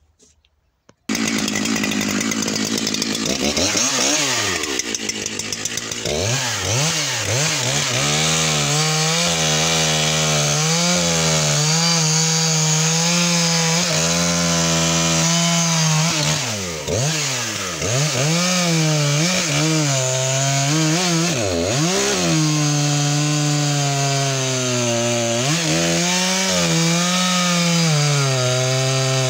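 Makita 7300P two-stroke chainsaw fitted with a Stihl RS 1.6 mm chain cutting through a large beech log. The sound comes in abruptly about a second in; the engine revs up and down for a few seconds, then runs at high revs with its pitch dipping several times as the chain loads up in the wood.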